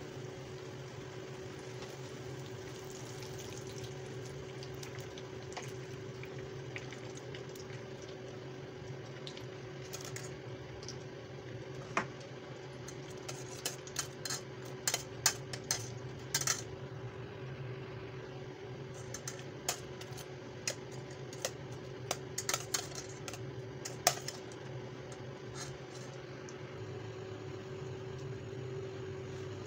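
Hot oil sizzling under a low steady hum, with a run of sharp metallic clinks from about twelve seconds in to near the end: a metal spoon knocking against a steel pot of sugar syrup as fried jalebis are handled in it.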